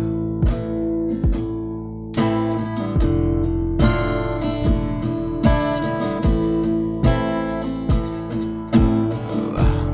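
Band music without vocals: strummed acoustic guitar over a steady beat.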